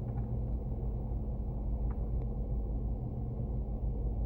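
Jeep engine idling steadily, a low even rumble. Two faint knocks come about two seconds in.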